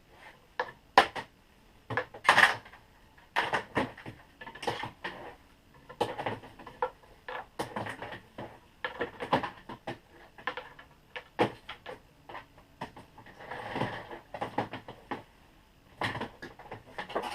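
Irregular clicks, clatters and short scraping bursts from scrap wire being handled and pulled through a hand wire stripper.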